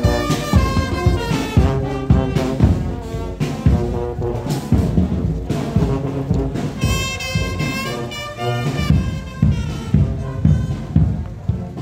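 Marching brass band playing a tune on the move: trombones, trumpets and a tuba over a steady bass drum beat.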